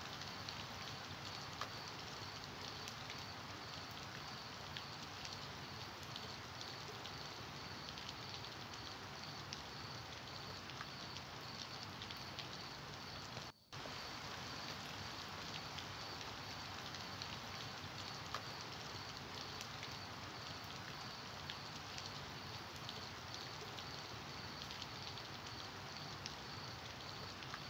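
Steady rain falling, with scattered small drips ticking through it and a faint steady high tone underneath. The sound cuts out for a moment about halfway through.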